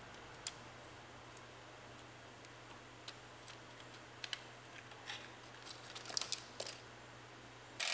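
Faint scattered clicks and light rattles of hands unclipping a car's plastic wiring harness and ABS sensor wire from the front suspension, with a quick cluster of clicks around six seconds in, over a faint steady hum.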